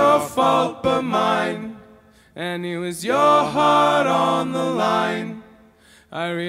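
Several men singing in close harmony, unaccompanied, after the full band cuts out at the start. The singing comes in held phrases with two short breaks, about two seconds in and near the end.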